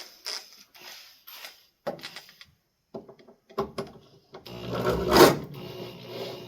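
Clicks and knocks of handling, then about four and a half seconds in a power drill starts up, loudest a little after five seconds in, and keeps running as it works the screws of a ceiling-fan mounting bracket.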